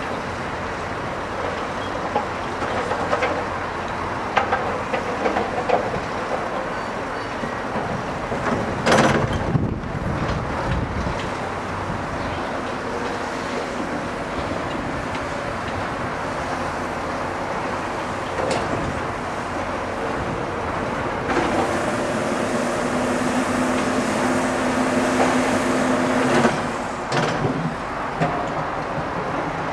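Building-site machinery running steadily, heavy diesel plant such as an excavator and dump truck, with a short loud burst of noise about nine seconds in and a steady engine hum in the second half.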